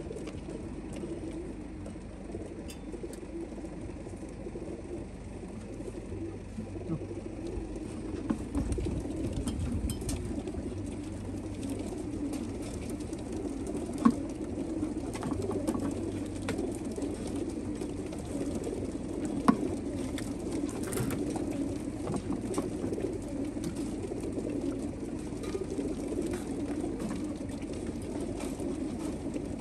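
A crowd of pigeons cooing together inside slatted metal transport crates, a dense, steady murmur of calls. A couple of sharp metallic clicks come about 14 and 19 seconds in.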